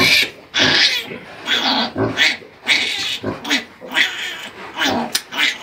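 Newborn piglet squealing in repeated shrill screams, a little under two a second, while it is held down for tail docking.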